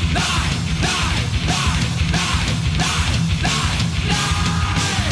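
Loud heavy rock music with a driving, regular beat.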